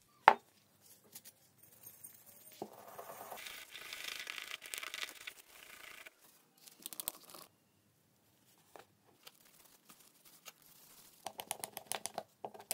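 A stiff brush scrubbing rust from inside a small metal speedometer housing in quick, scratchy strokes, with a sharp knock just after the start. Near the end come rapid rubbing and crumpling strokes as the housing is wiped out with a rag.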